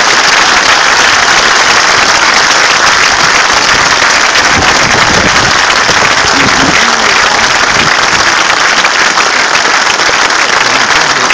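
Large crowd applauding steadily, a dense unbroken clapping.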